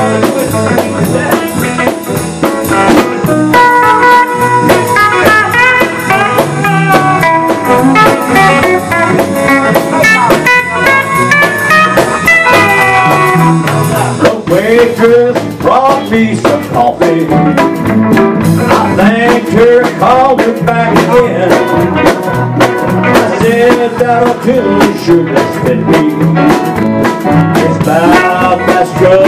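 Live country band playing an instrumental break: drum kit and keyboard under a lead melody with bending notes.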